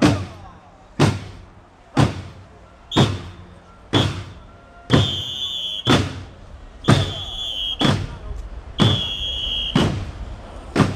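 A big drum beaten in a steady marching beat, about one stroke a second. From about three seconds in, a high piercing tone joins between the strokes, first in short toots, then in longer held blasts.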